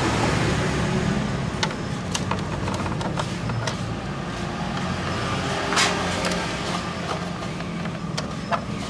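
Scattered light clicks and taps of hand tools on metal as a scooter's rear grab rail is being unbolted, irregular rather than rhythmic, with one longer scrape about six seconds in. A steady low vehicle rumble runs underneath.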